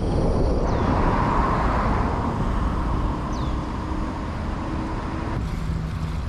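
Wind rumble and road noise on a bike-mounted camera's microphone, with traffic hiss that swells about a second in and eases near the end. Two short falling whistles cut through it.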